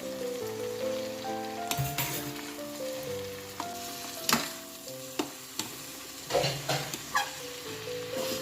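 Food sizzling as it fries in a pan, with a spatula stirring and scraping against the pan several times, mostly in the second half. A melody of background music plays throughout.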